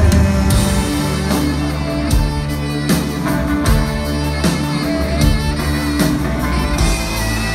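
Live rock band playing an instrumental passage with no vocals: drum kit, bass guitar and saxophone, with sustained notes over a steady beat.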